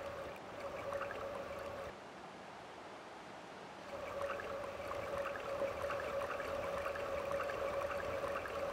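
Shallow river water running steadily, a gurgling stream sound. It drops quieter for about two seconds in the middle.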